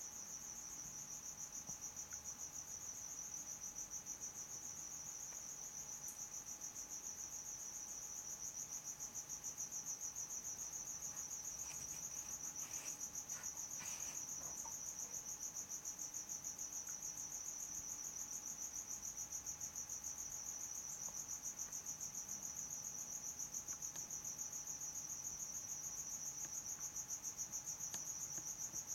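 Cricket-like insect trill: a steady, fast, high-pitched pulsing chirr that never pauses, with a faint steady hum beneath it.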